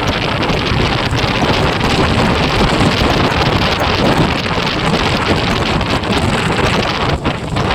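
Loud, steady wind buffeting the microphone of a moving motorcycle, a rushing noise strongest in the low end, with brief dips just before the start and near the end.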